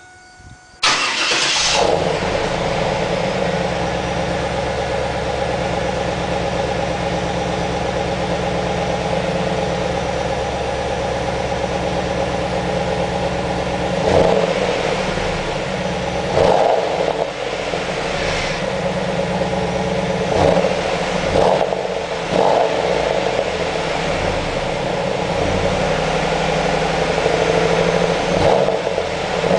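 1997 Chevrolet Camaro Z28's 5.7-litre LT1 V8 through its stock exhaust: it starts about a second in and settles into a steady idle. From about halfway it is revved in a string of short throttle blips between stretches of idle.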